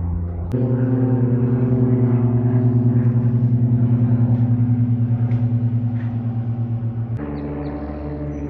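Light propeller plane's piston engine droning as it passes overhead: a steady hum of several stacked tones with a fast, regular throb in loudness. The sound changes abruptly about half a second in and again near the end.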